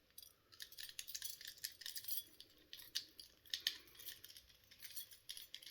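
Quiet, scattered metallic clicks and clinks of a bunch of keys and a handcuff key on a thread knocking against a steel handcuff as the key is worked into the cuff to unlock it.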